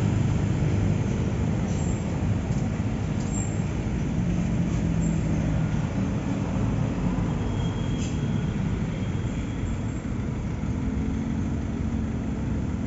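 Heavy diesel box trucks passing on a highway: a steady low rumble of engines and tyres, with engine tones swelling as trucks go by, once about midway and again near the end.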